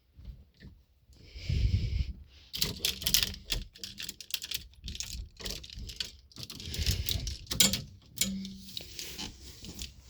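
Handling noise: rustling with a rapid, irregular run of clicks and taps, and a short low buzz near the end.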